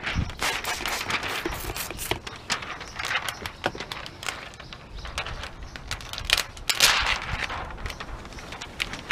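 Thin plastic window-tint film crinkling and crackling as a gloved hand slides and presses it against wet car window glass, with many irregular sharp clicks and rustles.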